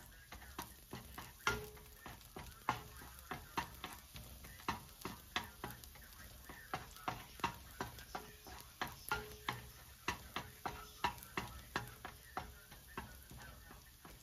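Wooden spatula stirring minced garlic frying in oil in a granite-coated wok: a steady run of wooden knocks and scrapes against the pan, two or three a second, over a faint sizzle.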